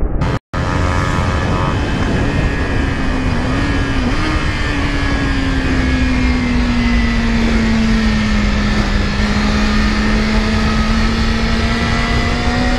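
Yamaha R6's inline-four engine heard from on board at speed, its pitch sagging slowly as revs ease through a long corner and rising again near the end as the throttle opens, with wind rushing over the microphone. The sound drops out for an instant about half a second in.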